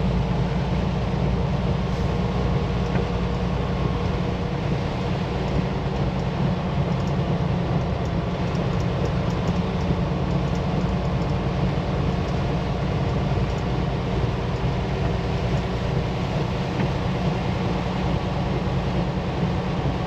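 Steady drone of a Freightliner semi-truck's diesel engine and road noise, heard from inside the cab while driving at a constant speed.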